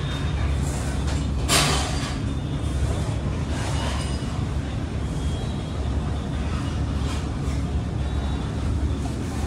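Steady low background rumble with a single sharp clatter about one and a half seconds in.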